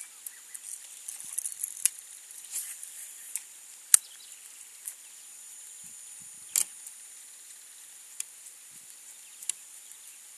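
Steady high-pitched insect buzzing from the marsh, with scattered sharp clicks and knocks: the loudest about four seconds in, another about six and a half seconds in.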